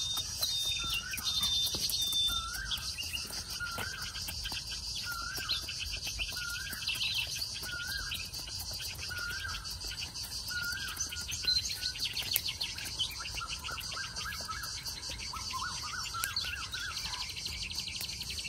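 Forest ambience: a bird repeats a short rising-and-falling call about once a second, with a quicker run of calls near the end, over a steady high-pitched buzz.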